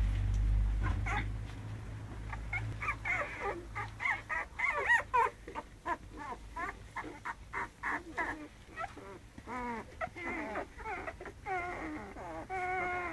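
A litter of young American Staffordshire Terrier puppies whimpering and squeaking, with many short high-pitched cries overlapping. The cries grow denser in the middle, and a few longer whines come near the end. A low rumble is heard in the first second or so.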